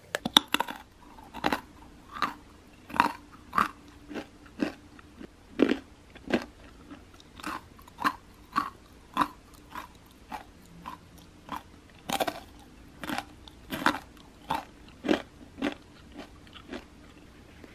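Close chewing of hard oat-flavoured Tongmildang whole-wheat protein chip sticks: a sharp crunch with each bite, about two a second, with a short pause near the middle.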